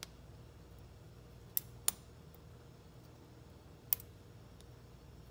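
Steel surgical instruments, a needle driver and tissue forceps, clicking as they grip and release a curved suture needle: several sharp clicks, two close together about a second and a half in and the loudest near four seconds in.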